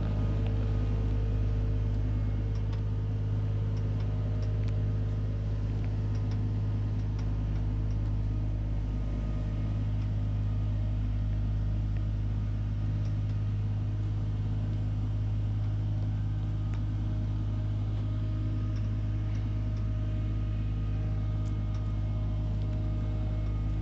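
Skid steer loader engine running steadily at constant speed as the machine drives with a loaded bucket, with a few faint clicks over it.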